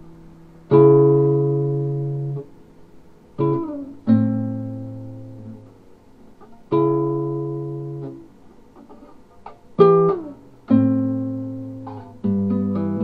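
Music: slow chords struck one at a time and left to ring out and fade, several seconds apart, with notes coming closer together near the end.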